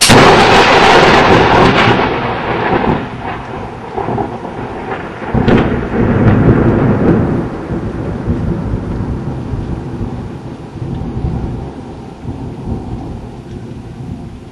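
Close thunder from a lightning strike: a sudden loud crack that rolls into rumbling. A second surge of rumble comes about five and a half seconds in, then it fades slowly, with rain.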